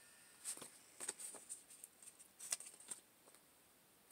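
Faint rustling and light ticks of a paper sticker sheet being handled: a handful of small taps and crinkles, stopping about three seconds in.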